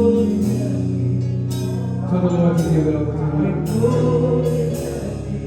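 Slow gospel worship music from a live church band: sustained keyboard chords and bass notes, with light percussion strokes.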